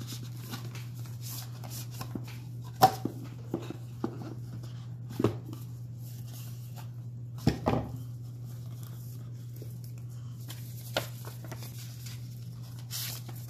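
A cardboard retail box being opened and its packaging handled by hand: scattered taps, knocks and rustles, the sharpest about three seconds in, over a steady low hum.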